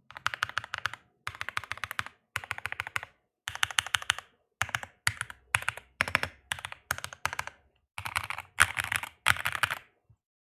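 Typing on an NK65 Aluminum V2 mechanical keyboard with factory-lubed stock linear switches, an FR4 plate and PBT keycaps: rapid runs of keystrokes with short pauses between them.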